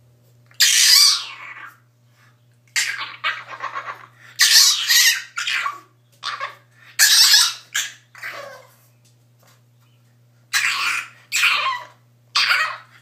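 Black French bulldog puppy crying: a string of high-pitched whines and yelps, each dropping in pitch at its end, coming in bursts with a pause of about two seconds in the middle.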